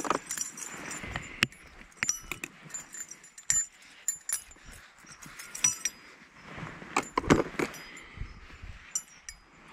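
Spinnerbait lure handled close by: its metal blade, wire arm and snap clip clink and jingle in a scatter of small metallic clicks, with a louder cluster about three-quarters of the way through.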